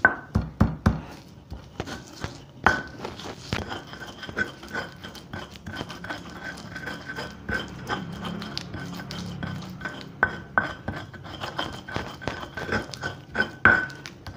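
Stone pestle (ulekan) crushing and grinding garlic, candlenuts and salt on a flat stone mortar (cobek). A run of sharp knocks in the first second gives way to steady back-and-forth scraping of stone on stone, with knocks here and there.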